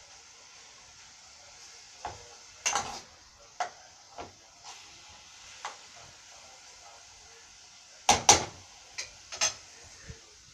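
Kitchen clatter: about a dozen sharp knocks and clicks of utensils and cookware, the loudest a pair of knocks about eight seconds in, over a faint steady hiss of meat frying in the pan for a ragù.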